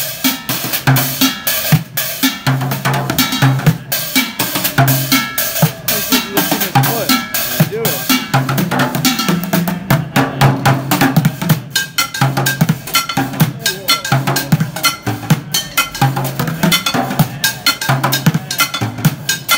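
Bucket drumming: a busker beats a fast rhythm with drumsticks on upturned plastic buckets, a metal can and a plastic water jug, mixing low thuds with sharp cracks.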